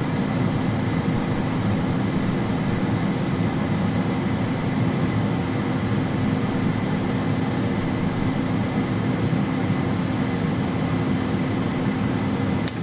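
Air fryer running: its fan blowing steadily with a constant low hum, then a single sharp click near the end.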